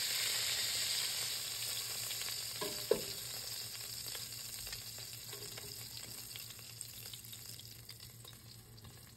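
Hot oil and meat drippings sizzling in a pot after browning oxtail, with a single metal clink of tongs about three seconds in as pieces are lifted out. The sizzle fades steadily.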